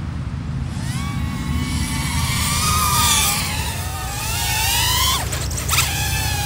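FPV drone motors and propellers whining, the pitch rising and falling as the throttle changes. The whine dives and briefly cuts out a little after five seconds in, then comes back. Low wind rumble on the microphone underneath.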